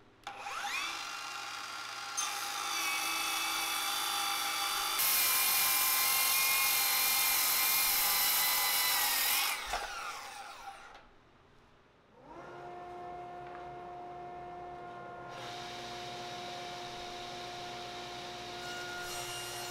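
A Ryobi cordless circular saw spins up with a rising whine, cuts through a wooden panel (the loudest part, in the middle) and winds down. After a brief lull, a table saw motor starts up and runs with a steady hum, growing somewhat louder toward the end.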